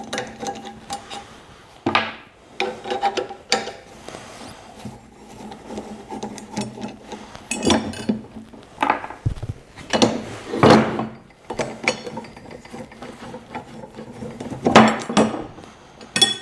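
Hand tool working the 1/4-20 bolts out of the steel top cap of a broadfork: irregular metal clinks, scrapes and knocks, with a few louder clunks spread through.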